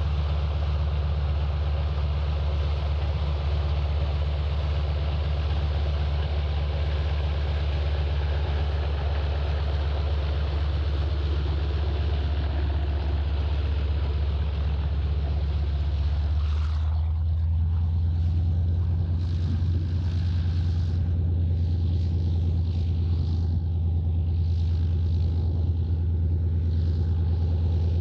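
PZL M-18 Dromader's nine-cylinder ASz-62IR radial engine running steadily on the ground, a deep even drone. About two-thirds of the way through, the sound changes: the higher frequencies drop away and the low drone comes to the fore.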